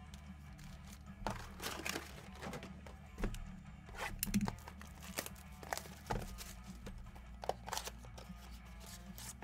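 Trading card packaging being torn open and crumpled in a string of short rips and crinkles, over a low steady hum.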